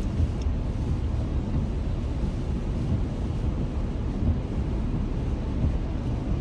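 Steady low rumble of a vehicle driving along a highway, engine and tyre noise heard from inside the cab.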